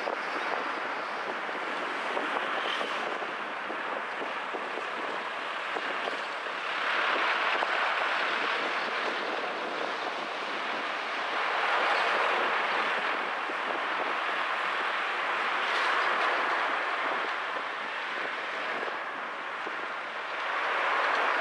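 Road and traffic noise recorded from a car driving through city streets: a steady rush of tyres and wind that swells louder four times, a few seconds apart.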